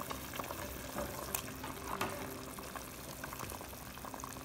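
Pot of beef and vegetable broth boiling on high heat: a steady bubbling with many small scattered pops.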